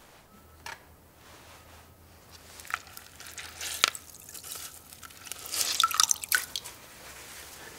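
Water splashing and dripping in a metal bucket as a hand dips in and lets water trickle back. The drips come singly at first, then thicken into a louder run of splashes about three-quarters of the way through.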